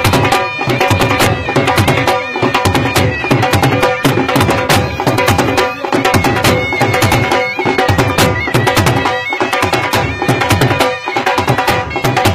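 Dhol drums beating a fast dhamal rhythm, with a drop in the pattern about every second and a half to two seconds. A wind instrument holds steady notes over the drumming.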